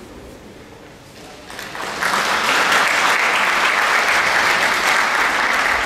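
Audience applauding. It starts about a second and a half in, swells quickly, and then holds as steady, loud clapping.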